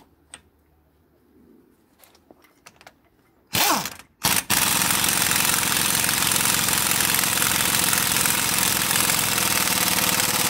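Impact wrench tightening a truck's front axle nut through a 35 mm socket: a few light clicks as the socket seats, a short spin-up about three and a half seconds in, then steady rapid hammering for the rest. The nut is being run down by feel rather than to a torque spec, on a freshly replaced front wheel bearing hub.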